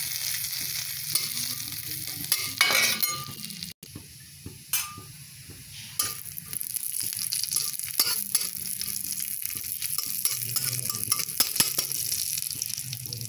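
Cumin seeds sizzling and crackling in hot ghee in a metal kadhai, with a metal spatula stirring and scraping the pan. The crackling is the seeds spluttering, the sign that the tempering is ready. The sizzle drops briefly about four seconds in.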